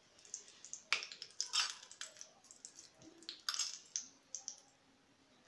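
Steel spoon scraping tempering out of a small frying pan and spreading it over soft barfi, with a few sharp clinks of spoon on pan, the loudest about a second in and again about three and a half seconds in.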